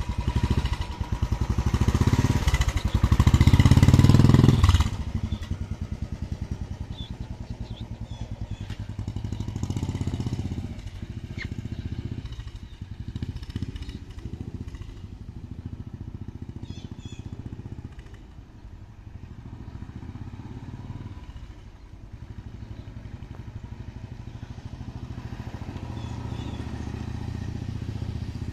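A motorcycle engine pulling away close by, loudest for the first five seconds. It then fades as the bike rides off down the street and grows louder again near the end as it comes back past.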